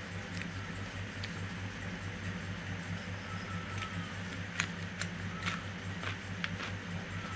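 Close-miked eating sounds: a woman chewing food and biting into a cucumber slice, with a few short sharp mouth clicks and smacks, most of them from about four to six seconds in, over a steady low hum.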